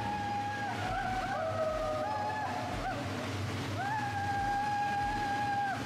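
ATV engines running through a narrow dirt tunnel, under a person's voice holding long drawn-out notes: a few shorter stepping notes, then one long held call near the end.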